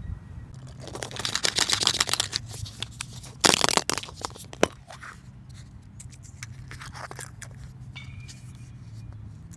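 Hands handling and opening a plastic surprise egg: a run of rapid crackling clicks starting about a second in, then a loud short crack and a single sharp click a little later, with scattered faint clicks after.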